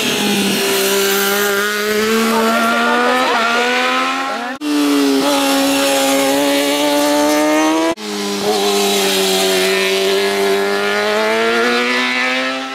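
Racing motorcycle engines held at high revs, one steady high engine note at a time, in three stretches split by abrupt cuts about four and a half and eight seconds in. The sound dies away near the end.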